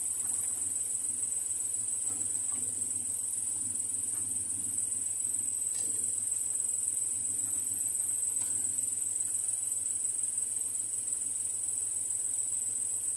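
Steady high-pitched trill of crickets over the low sizzle of a bhatura deep-frying in a kadhai of oil, with a faint tap of the slotted spoon about six seconds in.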